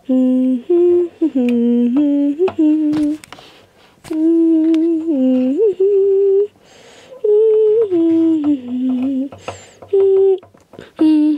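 A person humming a slow wordless tune: held notes that step up and down in pitch, in short phrases with brief pauses between them.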